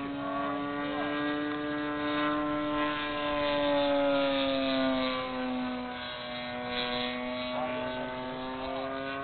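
The O.S. 1.60 engine of a quarter-scale SIG Extra 300 radio-controlled plane in flight, a steady drone whose pitch dips a little around the middle and then levels out.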